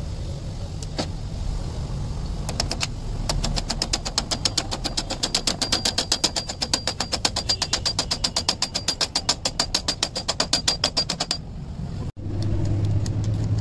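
Rapid, even metallic tapping, about seven taps a second with a ringing tone, starting a couple of seconds in and stopping near the end: a tool driving in the split pin that locks a shift fork onto its selector rod in a Mahindra Bolero NGT 520 gearbox.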